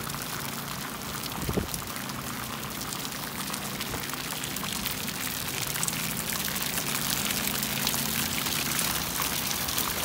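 Steady rain falling on wet copper seam roofing, growing slightly louder. A single low thump about a second and a half in.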